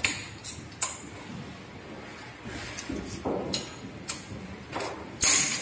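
Aluminium-and-steel reclining wheelchair frame being handled at its recline lever and chrome tubing: a series of metallic clicks and knocks, with a brief rubbing sound about three seconds in and a louder burst of noise near the end.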